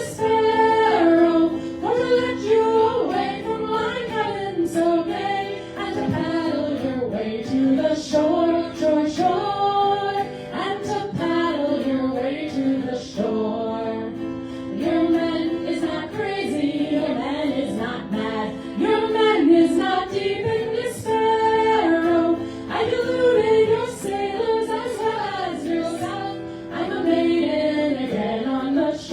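Several women's voices singing a song together in harmony, performed live.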